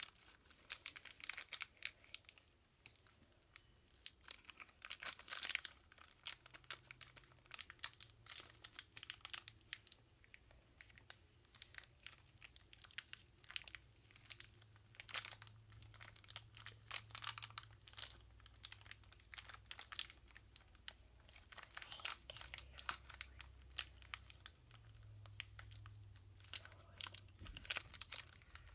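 Thin plastic toy wrapper crinkling in the hands as it is squeezed and pulled open, in a run of irregular crackles.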